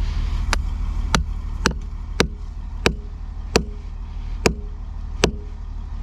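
Small sledgehammer striking a steel chisel against a septic tank's concrete lid: eight sharp metallic blows, a little under one a second and slowing slightly, over a steady low engine hum. The concrete lid on the outlet side is corroded and falling apart, typical of deterioration from hydrogen sulfide gas, and is being chipped loose.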